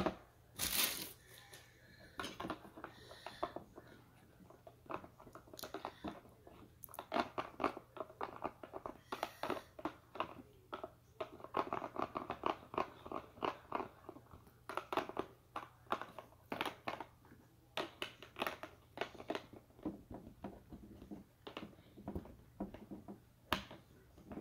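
Fluffy slime being squeezed and kneaded by hand in a plastic bowl, making an irregular run of wet squishes, crackles and small pops.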